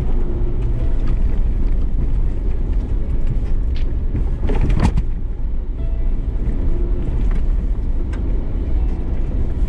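Ford Bronco Sasquatch driving off-road, a steady heavy low rumble of engine and tyres, with a brief clunk about halfway through.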